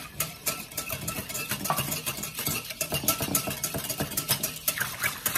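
Wire whisk beating a thin mixture of egg yolks, melted butter and water in a mixing bowl: a quick run of clicks and swishes as the wires strike the bowl, getting faster and louder near the end.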